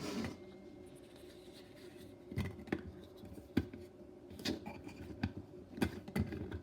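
Light clicks and taps of a new teapot's plastic lid and metal infuser being handled and fitted together, about seven scattered knocks over a faint steady hum.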